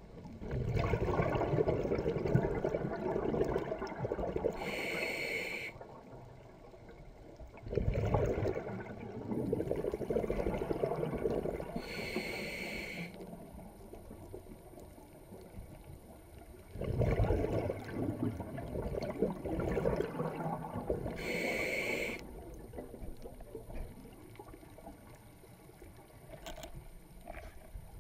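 Scuba diver breathing through a regulator underwater: three long rumbling exhalations of bubbles, each a few seconds long, with short, higher-pitched breaths in between, about one breath every eight seconds.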